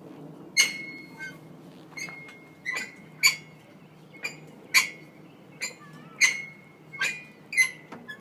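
Metal monkey bars clanking as they are grabbed one after another, about ten sharp clanks at an uneven pace, each with a short metallic ring.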